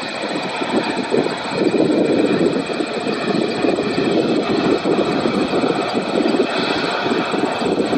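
Boeing 777-300ER's GE90 jet engines at takeoff thrust as the airliner climbs away: a loud, steady, crackling rumble.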